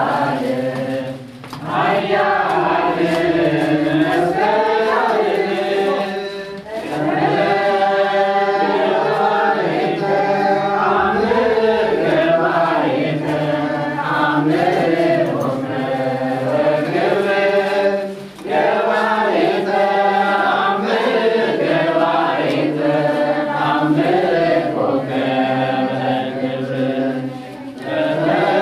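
A group of voices chanting a hymn together in long melodic phrases, with a few brief pauses between phrases.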